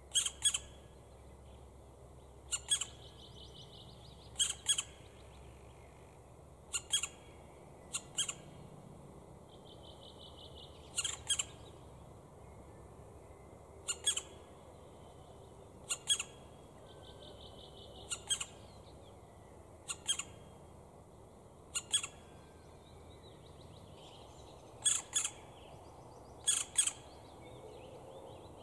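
Black woodpecker nestlings calling from the nest hole: short, sharp notes, mostly in pairs, repeated about every two seconds, with a few longer buzzing notes between them.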